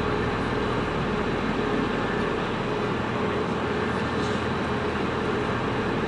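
Steady city street noise with a constant mid-pitched hum, from a stopped electric commuter train alongside and road traffic.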